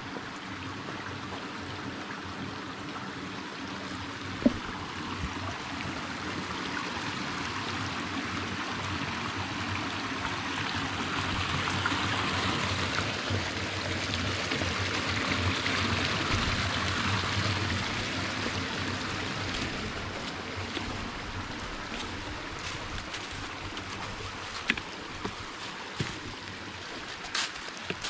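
Running water, rising to its loudest around the middle and easing off again. There is one sharp click about four seconds in and a couple more near the end.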